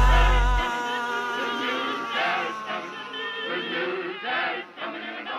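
Music from a horrorcore rap track: the beat's heavy bass cuts out about half a second in, leaving an operatic singing voice with long held notes.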